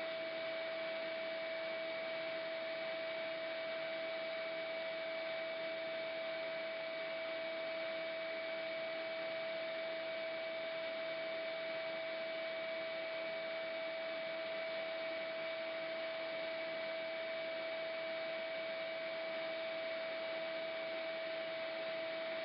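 A steady hum over an even hiss, unchanging in level and pitch.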